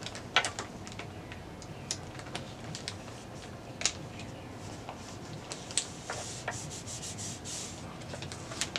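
A sticker being handled and rubbed down onto a wooden skateboard deck: soft rubbing with a few scattered sharp ticks and crackles of the sticker's paper.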